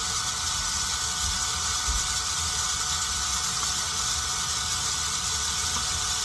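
Power drill running steadily with a 5/32-inch bit, boring a hole through a plastic RC truck body; loud.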